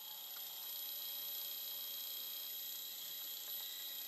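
Small milling machine running at a steady speed with a constant high-pitched whine while an 8 mm reamer is fed through the crank-pin hole of a cast crank web.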